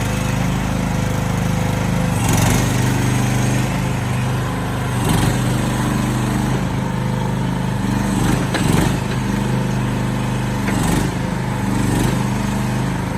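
The AGT MX15R mini-excavator's 420cc, 15 hp single-cylinder gasoline engine running steadily, with brief surges every few seconds.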